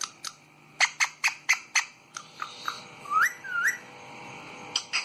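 Indian ringneck parakeet calling: a quick run of five short sharp chirps at about four a second, then two short rising whistles.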